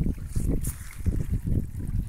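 Wind buffeting a phone microphone in uneven gusts, over rainwater trickling down a shallow channel in a dirt road.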